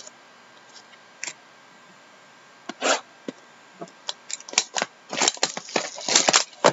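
Shrink-wrapped cardboard trading-card boxes being handled and opened: crinkling plastic wrap and cardboard. A few scattered crackles give way to a dense run of crinkling and tearing over the last two seconds or so.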